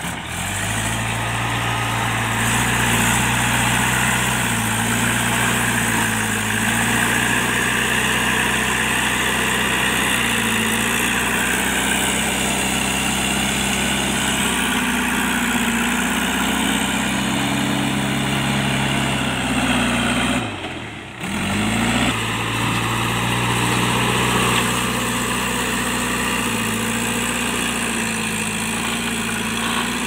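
JCB 3DX backhoe loader's diesel engine running as the front bucket pushes and levels soil, its pitch rising and falling with the load. The sound breaks off for a moment about two-thirds of the way through.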